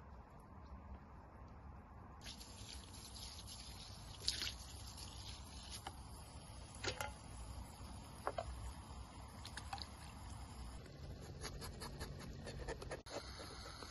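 Knife scraping and slicing a raw Atlantic herring on a wooden board, with wet dripping sounds. Sharp clicks of the blade come about four, seven and eight seconds in, then several in quick succession near the end.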